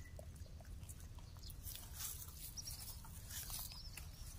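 Faint rustling and scraping of dry soil and grass as a macaque scoops dirt into a woven basket by hand, over a steady low rumble. A couple of faint bird chirps come past the middle.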